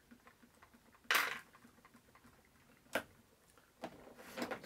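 Plastic parts organizer box being closed: a sharp clack about a second in and a shorter click about two seconds later as the lid is shut and clipped.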